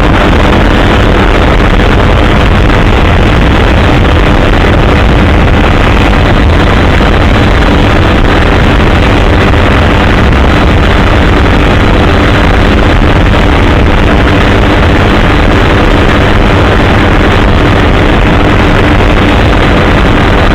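Helicopter engine and rotor noise, loud and steady throughout, with a few faint steady tones over a deep rumble.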